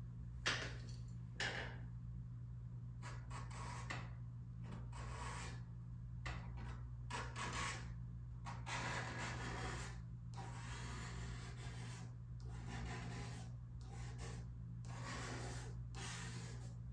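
Palette knife scraping and rubbing oil paint across paper on a wooden board, in a run of short, uneven strokes, the sharpest one about half a second in.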